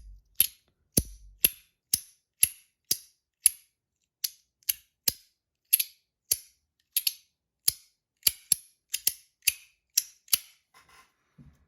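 Titanium Compoform Astronaut haptic coin, its two halves slid back and forth and snapping into place: sharp, pretty loud clicks about twice a second, stopping shortly before the end.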